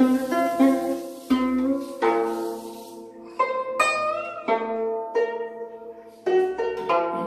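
Guzheng (Chinese plucked zither) played solo: a melody of plucked notes that ring and fade, denser in the first two seconds, with a few notes bent upward in pitch about four seconds in.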